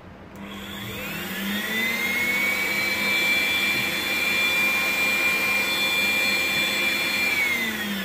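The Arçelik S6840 vacuum cleaner's motor starts, winds up in a rising whine over about a second and a half and runs steadily, then its pitch starts to fall near the end. It is running at low power, held at its minimum stable speed because the power adjustment control is not engaged.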